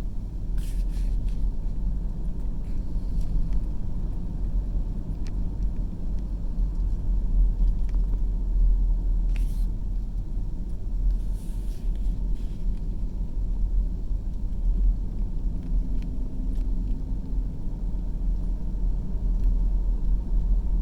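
Steady low rumble of a car driving along a road, with engine and tyre noise. A couple of brief hissing swells come near the middle.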